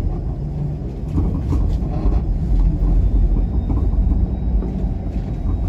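Steady low rumble of a city transit vehicle on the move, heard from inside the cabin, a little louder in the middle.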